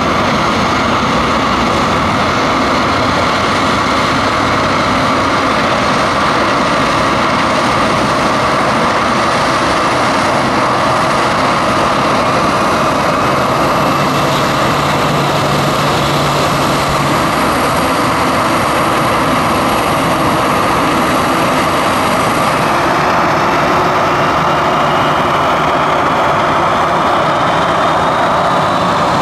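Boeing 737-800's CFM56 jet engines running, a loud steady roar with a high whine. Near the end the whine climbs in pitch as the engines spool up.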